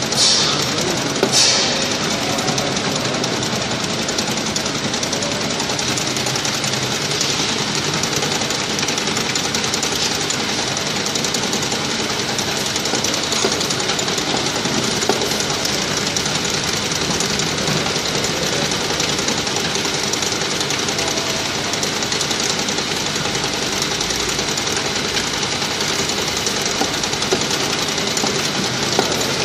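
Multi-head oil filling machine running on a bottling line: a steady mechanical clatter of conveyor and filling heads, with two short hissing bursts near the start.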